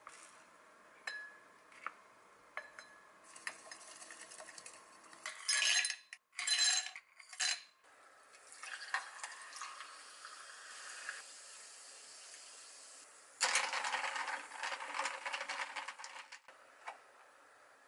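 A spoon taps and scrapes in a tall glass. Ice cubes clatter into it about five to eight seconds in, and liquid is poured over the ice from a bottle. Near the end a stir stick clinks the ice around the glass for about three seconds.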